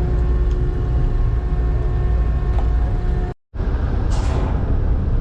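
Steady low rumble of a moving vehicle, engine and road or hull noise, with a faint steady hum on top. It cuts out abruptly for an instant about three and a half seconds in.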